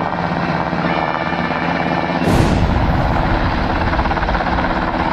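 A steady train engine rumble, cut into about two seconds in by a sudden, loud cartoon explosion sound effect whose low rumble carries on to the end.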